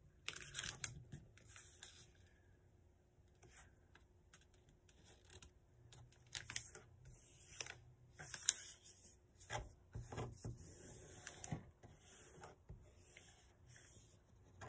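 A sheet of paper being squash-folded and creased by hand: intermittent crinkling and rustling, with a sharp crackle a little past halfway.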